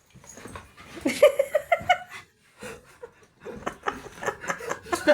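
A person laughing and giggling, in two spells with a short lull between.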